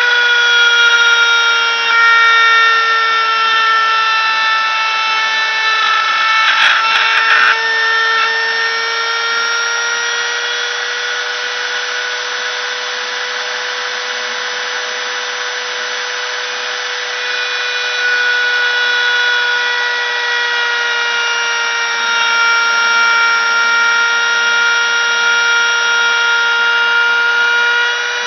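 CNC machine's spindle motor running with a steady high whine as it cuts out a sign, the pitch sagging slightly and recovering as the load changes, with a brief rougher stretch about six to seven seconds in.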